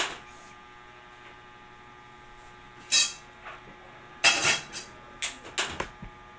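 Comb strokes through a girl's hair: short swishes, one at the start, one about three seconds in, then several quicker strokes near the end, over a faint steady electrical hum.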